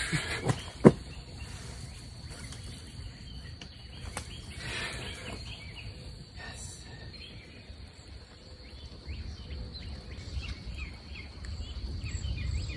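Riverbank ambience: a few sharp knocks in the first second as the fish is landed, then a steady high insect drone with birds chirping repeatedly, over a low wind rumble.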